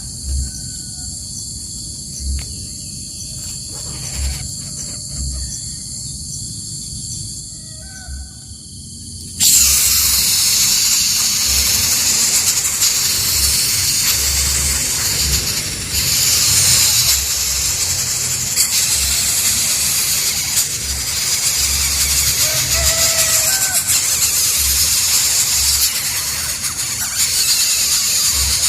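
A steady, high-pitched insect drone with a few faint bird chirps beneath it. About nine seconds in it jumps to a much louder, harsher high hiss that holds.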